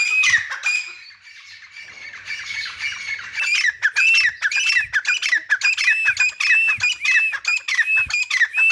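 Grey francolin calling: a rapid run of shrill, repeated arched notes, a few per second. The calling drops away about a second in, then builds back to full strength around three seconds in.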